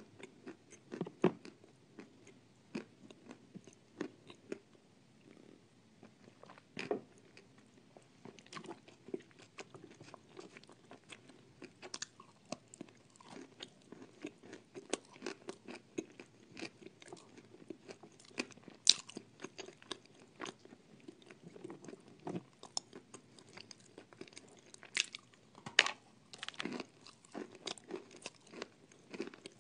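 Biting into and chewing hard, dry lumps of edible clay: irregular sharp crunches and crumbling crackles. A few louder bites come around the middle and near the end.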